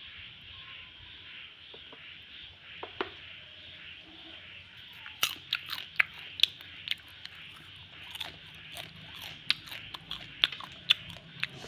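Popcorn crunching: sharp, irregular crackles, several a second, starting about five seconds in, over a steady background hiss.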